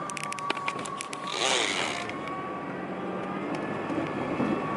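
Steady road and engine noise inside a moving car, with a cluster of quick clicks and rattles in the first second and a short rustling burst about a second and a half in.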